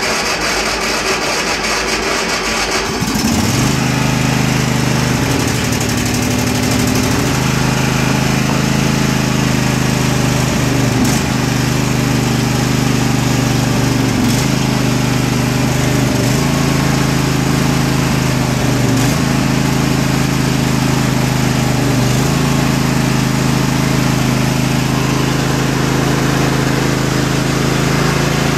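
A Statesman riding mower's 20 hp Briggs & Stratton V-twin is cranked on choke by its electric starter, the battery sounding close to giving out, and catches about three seconds in. It then runs steadily, with a few brief dips in speed.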